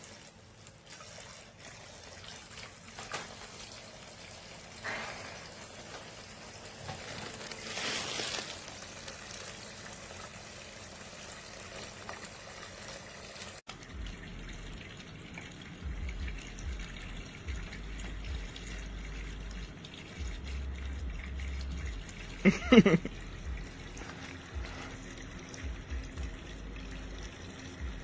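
Water trickling and splashing from a toy play sink's battery-powered faucet into its basin, with small handling splashes. A short loud pitched sound stands out briefly about 23 seconds in.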